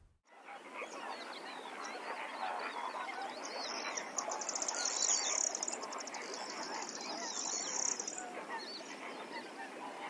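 A large flock of waterfowl calling all at once: a dense chorus of many overlapping honking and quacking calls that fades in at the start. A high, rapid trill sounds over it for several seconds in the middle.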